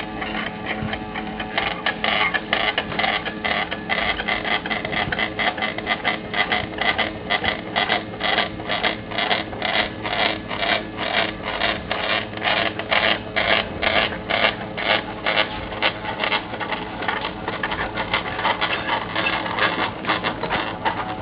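Stepper motor turning a car jack's threaded screw as a CNC linear stage: a steady mechanical hum with a regular ticking, about three strokes a second.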